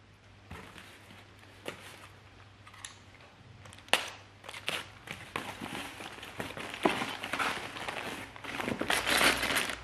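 Corrugated cardboard packing being peeled and torn off a packed part by hand, crinkling and crackling in irregular bursts, with one sharp knock about four seconds in. Near the end the crinkling grows dense as the cardboard comes away and a plastic bag of metal hardware is handled.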